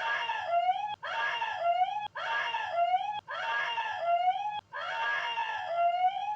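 A high wailing, scream-like cry repeated about five times in near-identical copies, each ending in a rising glide and cut off abruptly: a looped recorded sound effect.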